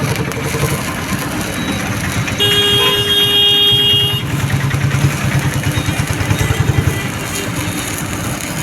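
Motor vehicle traffic: an engine running with a low pulsing rumble, and a vehicle horn sounding steadily for about two seconds, starting about two and a half seconds in.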